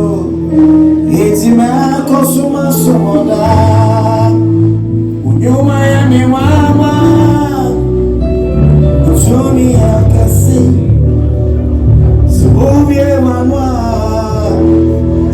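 Music with singing: sustained bass and keyboard chords under a voice singing melodic lines.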